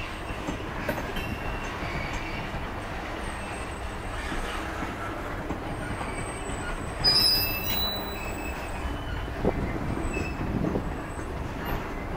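Railroad tie train's gondola cars rolling past with a steady rumble, their wheels squealing thinly and high on and off. About seven seconds in a sudden loud burst of noise stands out above the rumble.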